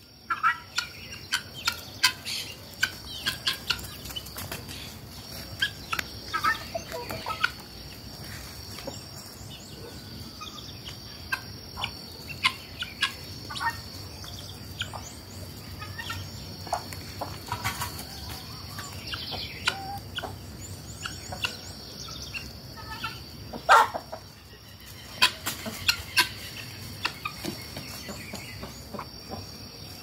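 Free-range chickens and helmeted guineafowl calling: scattered clucks and short harsh calls, the loudest about 24 seconds in, over a steady high-pitched whine.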